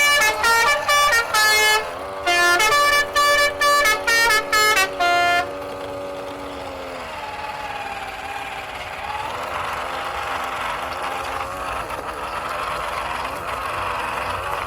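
A run of short electronic horn toots at shifting pitches, like a toy vehicle's horn, ending about five seconds in. After that a held tone sags in pitch and gives way to a warbling electronic sound.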